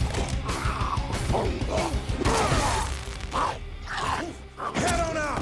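Action-film fight soundtrack: a music score under a dense run of hits and crashes, ending with a vampire's screech that falls in pitch near the end.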